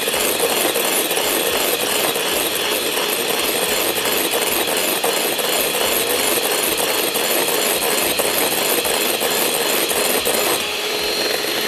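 Electric mixer running steadily, whipping three egg whites until they hold stiff peaks; its motor whine keeps a steady pitch, and the sound thins slightly about a second before the end.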